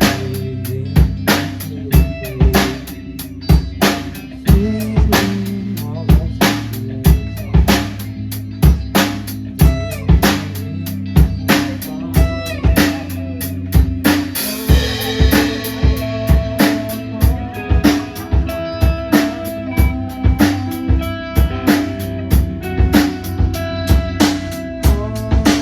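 Rock band playing an instrumental passage: drum kit keeping a steady beat with kick and snare, under bass and electric guitar, with a cymbal crash about halfway through.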